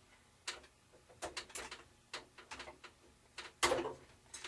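Hands handling small parts and straps on a workbench: an irregular run of light clicks, taps and rustles, the loudest about three and a half seconds in.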